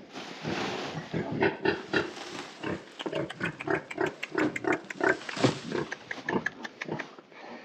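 Sow grunting in a long run of short, quick grunts, several a second, as fresh-cut grass is pulled from a sack and dropped into her pen; the grass and sack rustle at first.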